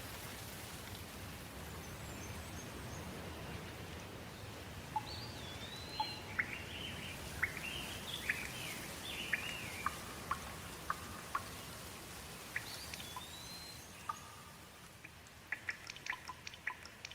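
Steady rainfall with birds chirping and whistling through it. Near the end the rain thins and sharp separate drips stand out.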